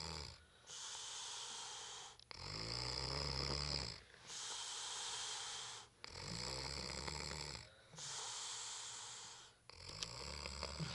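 Person asleep drunk and snoring heavily in slow, even breaths. A low, rasping snore alternates with a hissing breath about every three and a half seconds, a little over three full breaths in all.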